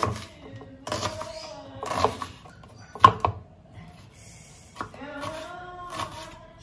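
Background music: a song with singing over a steady beat. A short sharp click about three seconds in.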